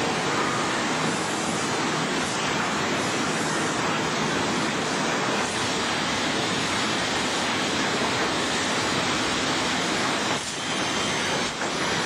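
Sawmill machinery running with a steady, dense noise, dipping briefly twice near the end.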